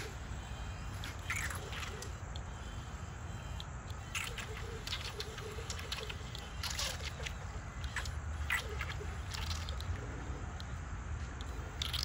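Swimming-pool water lapping and sloshing, with scattered small splashes and drips over a steady low rumble.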